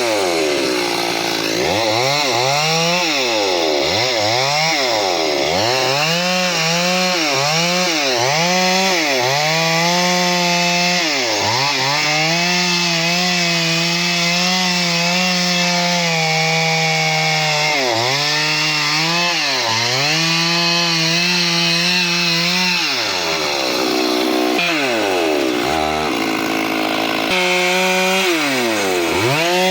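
Stihl two-stroke chainsaw running hard while cutting a large tree, its engine speed dropping away and climbing back every second or two, then holding high for several seconds at a stretch.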